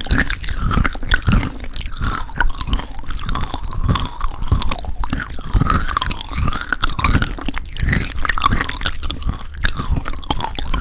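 Close-miked chewing of crunchy granola with thick yogurt: wet crunching and munching in a steady chewing rhythm.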